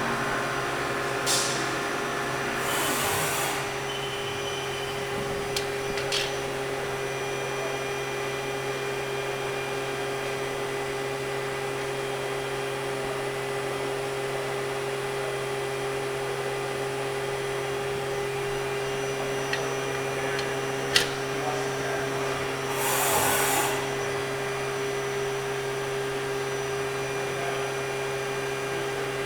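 Haas VF-4SS CNC vertical machining center running through a cycle: a steady machine hum with several steady tones. Two short bursts of hiss come about 3 seconds in and again around 23 seconds, and a sharp click comes near 21 seconds.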